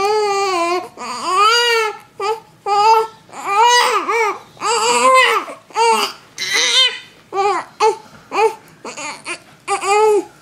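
Three-week-old baby fussing and crying in a string of short, high-pitched cries, each rising and falling in pitch, about a dozen in a row.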